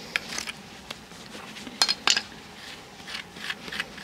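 Hoof knife paring the sole of a pony's hoof during a trim: a series of short scraping cuts, the loudest two about two seconds in.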